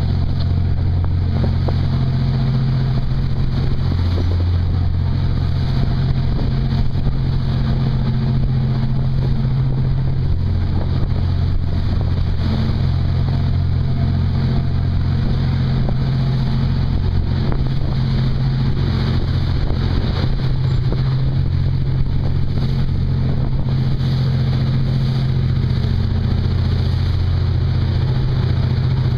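Jet boat's engine running steadily at speed as a strong, even low drone, with the rush of water and spray along the hull and wind on the microphone.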